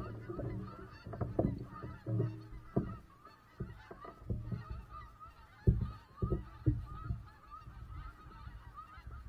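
Irregular knocks and thumps from paddling the kayak, over a steady chorus of distant bird calls.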